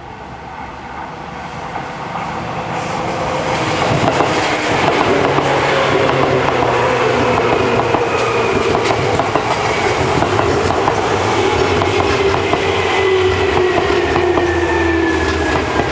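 Seibu 2000-series electric commuter train approaching and passing close by. The rumble and clatter of its wheels on the rails builds over the first few seconds, then stays loud and steady. Through it runs a whine that falls slowly in pitch as the train slows.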